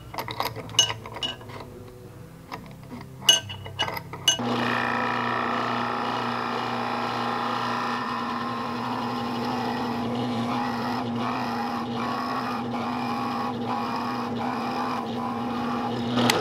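A few light metal clicks and knocks as a steel C-clamp is set. Then a benchtop drill press starts about four seconds in and runs steadily, its motor humming while a large boring bit cuts a hole into a small block of hickory.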